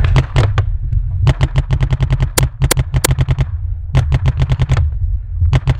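Paintball markers firing rapid strings of shots, several a second, in bursts with short pauses, over a steady low rumble.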